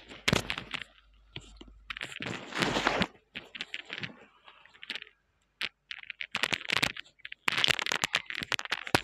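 Short, irregular crackles, rustles and clicks picked up very close to an earphone's in-line microphone: a paper tissue wiped over the mouth and the microphone cable being handled.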